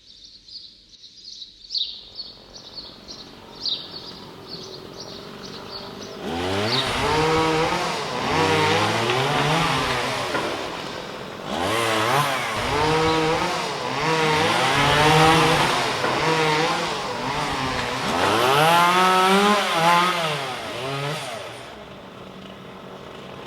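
Birds chirp in short repeated notes for the first few seconds. About six seconds in, a chainsaw starts and revs up and down over and over, the pitch climbing and falling with each burst of throttle. It drops away shortly before the end.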